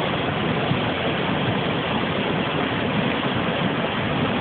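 Floodwater rushing, a steady, even noise with no breaks.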